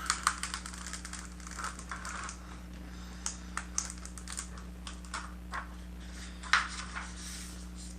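Protective plastic film being peeled off a Rii K16 slim wireless keyboard: irregular crinkles and crackles with scattered light clicks as the keyboard is handled, the loudest about six and a half seconds in.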